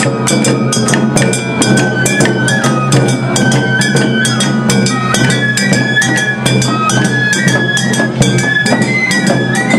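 Awa Odori festival street band playing live: shamisen and a high bamboo-flute melody over drums and gong struck in a fast, steady rhythm.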